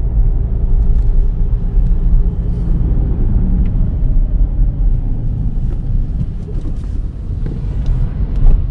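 Volkswagen Virtus GT's 1.5 TSI turbo four-cylinder engine pulling the car along, over a heavy low road and tyre rumble; the engine note eases down slightly a few seconds in.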